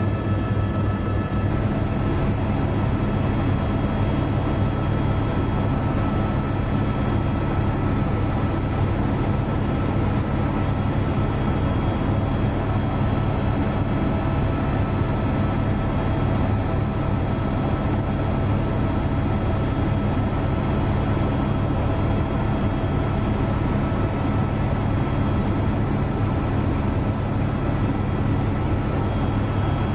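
Aircraft engine drone, steady and unchanging throughout, with a strong low hum and a few faint steady whines above it.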